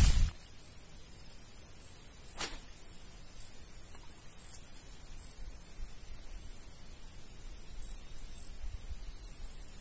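Steady high-pitched drone of insects in the grass, with a low rumble of wind on the microphone underneath. A single sharp click sounds about two and a half seconds in.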